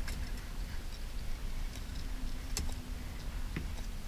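Fishing reel being cranked to retrieve a snagging treble hook: a faint low hum with a few scattered sharp clicks, over a steady low rumble of wind and water noise.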